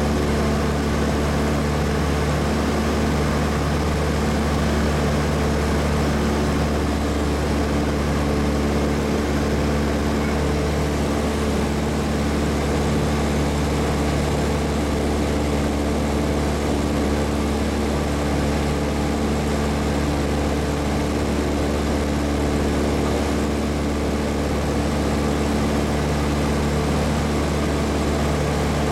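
Light aircraft's engine and propeller droning steadily at a constant pitch, heard from inside the cabin.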